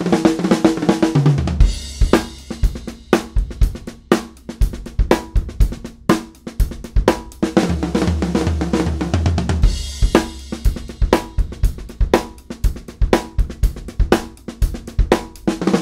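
Acoustic drum kit played at a quick tempo: a groove on bass drum, snare, hi-hat and cymbals, broken up by fills built on the Herta sticking (two fast notes and two slower ones) moving around the toms. Each fill leaves a low ringing tom tone.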